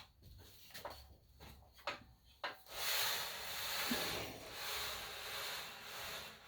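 Miter saw's mounting brackets sliding along the rail of a Ridgid AC9960 miter saw stand: a few light clicks, then a long, even scraping rub lasting about three and a half seconds.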